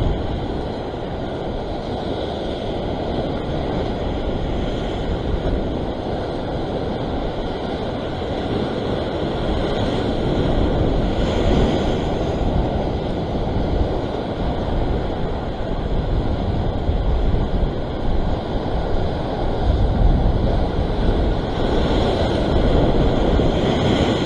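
Ocean surf breaking and washing over a rock ledge, with wind buffeting the microphone. The wash swells louder about halfway through and again near the end, as a wave breaks into spray over the rocks.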